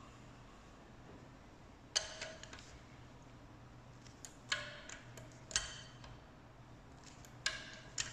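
Sharp metallic clicks from a wrench and socket on the cylinder head bolts of a VW 1.8 TSI engine as they are tightened, five of them a second or two apart, some with a short ring. A faint steady hum lies underneath.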